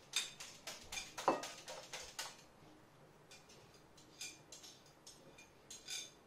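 A fork clinking against a small ceramic bowl while eggs are beaten: quick, dense taps for about two seconds. Then scattered clicks follow as the fork scrapes the beaten egg out of the bowl.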